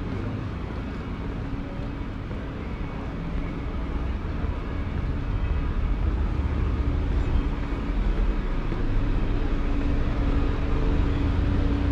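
Street traffic: a car engine running as a low rumble that grows louder from about halfway through, with a steady hum in the last few seconds.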